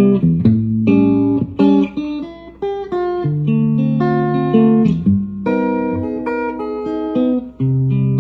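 Clean electric guitar played through a STRICH Dynacomp analog compressor pedal: picked chords and single notes, each ringing out with long, even sustain.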